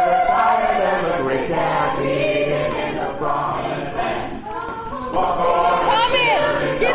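Mixed chorus of teenage boys and girls singing together in sustained notes. About six seconds in, a single voice slides up and back down above the group.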